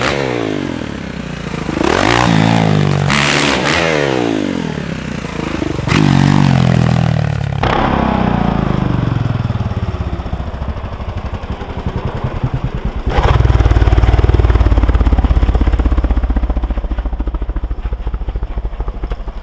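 Motocross bike engine revving hard several times, its pitch rising and falling with each burst of throttle. From about eight seconds in, it is a lower, steadier engine run with a fast even pulse, loudest around the middle.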